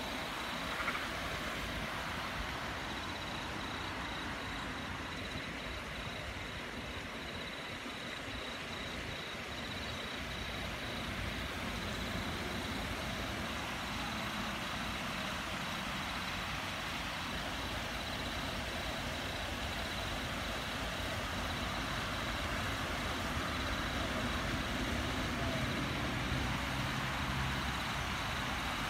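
Water spilling over a low stepped concrete weir into a pond, a steady rushing wash. A low rumble rises near the end.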